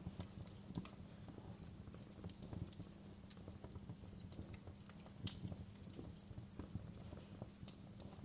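Wood fire crackling in a fireplace: irregular snaps and pops over a low steady rumble.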